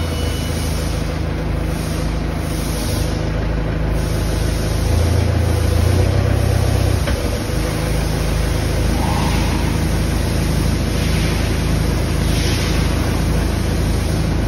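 Steady low hum and noise of running factory machinery, with a louder low drone for about two seconds in the middle.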